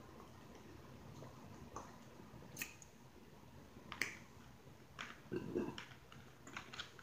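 Wet lip smacks and mouth clicks from the eater, a handful of sharp ones a second or so apart with a softer smack about five and a half seconds in.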